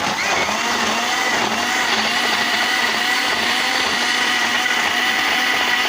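Electric kitchen blender running at a steady speed, blending chopped tomatoes and yogurt into a purée; it starts abruptly and cuts off just at the end.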